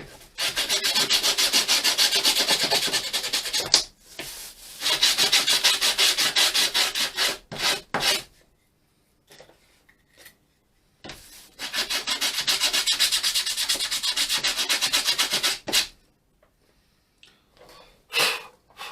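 Hand sanding of laser-cut plywood kit parts: quick back-and-forth rubbing strokes in three spells of a few seconds each, with a few short strokes between and a couple of light knocks near the end. The sanding roughens the edges and takes off the burnt soot from the laser cutting so that glue will stick.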